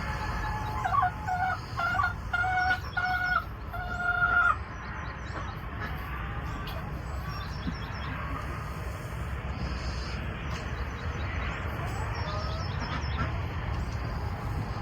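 Chicken calling: a run of about six short, loud, level-pitched squawks over the first four and a half seconds. After that a steady low background noise continues, with faint bird chirps.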